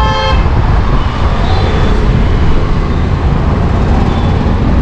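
Steady road and engine rumble inside a moving Tata Safari's cabin, with a short pitched tone right at the start.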